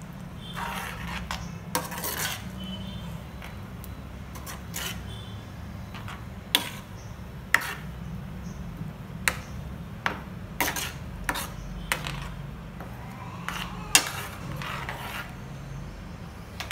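Metal spoon stirring ground coconut paste into a thick curry in a stainless steel frying pan. It scrapes the pan and knocks it with sharp, irregular clicks.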